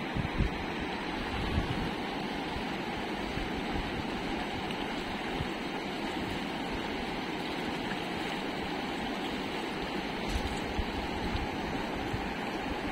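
Fast, shallow river rushing steadily over rocks, with a few brief low bumps on the microphone.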